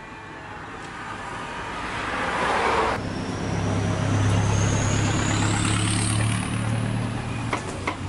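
A rush of noise that swells and cuts off suddenly about three seconds in, then a motor running with a steady low hum and a faint high whine that climbs slowly in pitch. A few light clicks come near the end.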